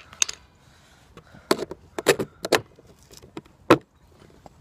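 Skateboard bearings and wheel being handled and pushed together by hand: about six sharp hard clicks and knocks, the loudest near the end.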